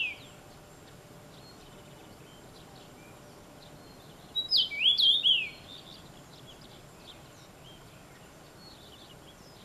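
Male common rosefinch singing: the last notes of one phrase at the very start, then one full short phrase of clear whistled notes sliding up and down about four and a half seconds in.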